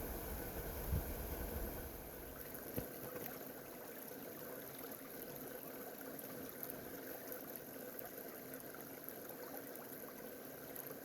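Faint, steady rush of flowing water, with a few soft low bumps in the first three seconds.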